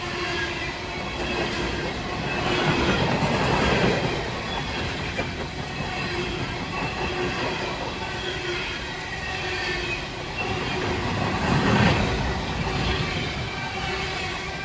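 A train of empty coal cars rolling past close by, steel wheels clattering over the rails with a faint squeal. The noise swells louder about three seconds in and again near the end.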